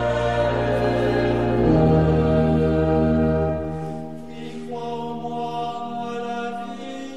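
Slow sacred choral music: voices hold sustained chords over a deep bass, the chord shifting twice. The bass drops out about four seconds in and the music grows quieter.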